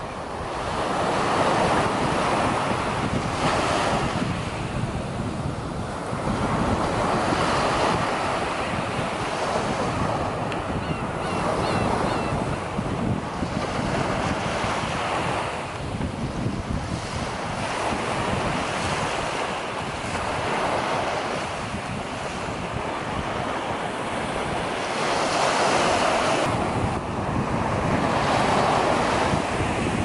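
Surf breaking and washing up a sandy beach, the rush of water swelling and ebbing every few seconds, with wind rumbling on the microphone. A few faint gull calls come through about a third of the way in.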